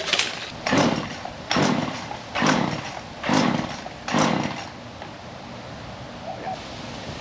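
Chainsaw pull-cord yanked six times in quick succession, each pull a short rasp, without the engine catching. The saw is acting up with a fuel line that leaks gas.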